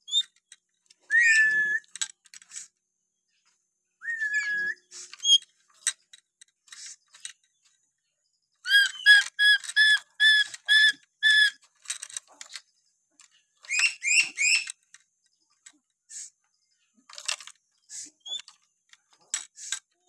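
Black-capped lory whistling. It gives a couple of drawn-out whistles that slide in pitch in the first few seconds, then a run of about seven evenly spaced whistled notes about halfway through, then three quicker, higher notes, with short chirps and clicks between.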